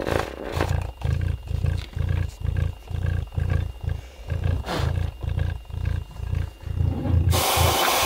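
Bare subwoofer driver playing pulsing bass, about two and a half deep pulses a second, with a little buzz still on each pulse left from the voice coil rubbing in its gap after an attempt to re-centre it. About seven seconds in, a steady hiss of canned compressed air starts, blown into the voice-coil gap.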